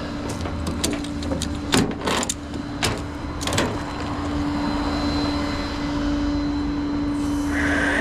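A tow truck's winch is pulling a pickup onto the deck over a steady hydraulic hum. Sharp cracks and clicks come in the first few seconds, likely from the pickup's tyres rolling over something. Near the end a louder whine rises in pitch as the truck's engine revs up.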